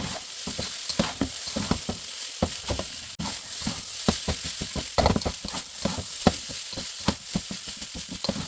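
Beef fried rice sizzling in a hot pan while it is stirred, the spatula scraping and knocking against the pan several times a second.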